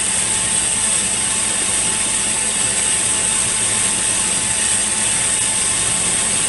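SincTech ADV-2A glass lathe running with three glass tubes spinning in its chucks, a steady mechanical rattle and hiss with a high whine on top, while a torch flame warms the tubes.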